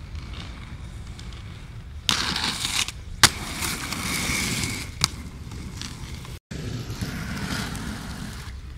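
Inline skate wheels rolling loudly over a concrete skatepark surface, with a sharp clack about three seconds in and a lighter one about two seconds later.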